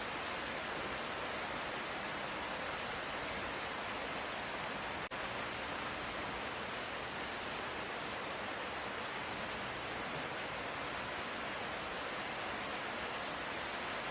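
Steady hiss of light rainfall, even throughout, with a brief dropout about five seconds in.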